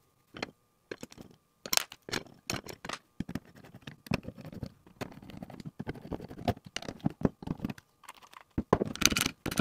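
A hand screwdriver driving the small corner screws into a guitar pedal's back plate: irregular clicks, scrapes and taps of the bit, screws and plate being handled.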